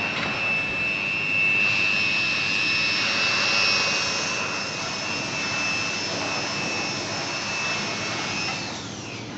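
Handheld fiber laser welding machine running: a steady hiss with a high, even whine over it. Near the end the whine glides down in pitch and the sound fades, as the machine winds down.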